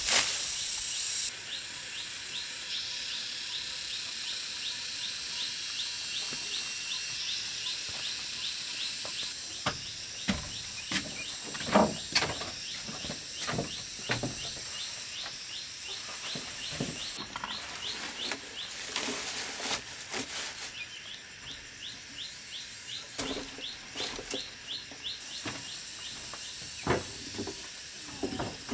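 Outdoor woodland ambience: a steady high hiss with a rapid, evenly repeated chirping call, about four to five chirps a second. Scattered knocks and rustles from someone handling plants and walking on wooden boards come through in the middle and near the end.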